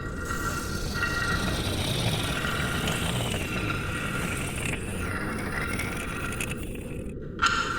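Steady deep noise, like brown noise, under crackly radio-receiver static and wavering, gliding electronic tones meant as alien signals. The upper static and tones drop out briefly about seven seconds in and come back with a sudden burst.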